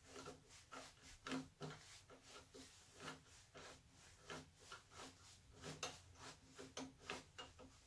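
Nova G3 woodturning chuck's T-handle key being turned, giving a string of faint, irregular clicks, about three a second. This is the funky clicking of the key catching once every turn, which the owner puts down to a burr of metal sticking out on the key's gear.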